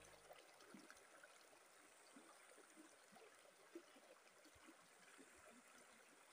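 Near silence: the faint trickle of a shallow river running over rocks.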